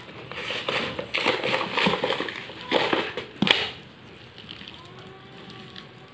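Boiled potatoes, mixed with chopped garlic, chilli and coriander, mashed by hand on a steel plate: wet squishing and crushing with a few sharp clicks, for about three and a half seconds, then quieter.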